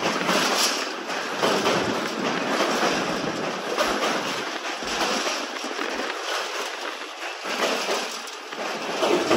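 Wind rushing over the microphone from a moving train, a dense hiss that swells and fades.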